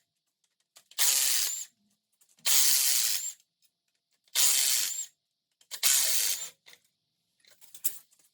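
Power impact wrench running in four short bursts of under a second each, with silence between, backing out the exhaust manifold bolts on a GM LQ9 6.0L V8's cylinder head.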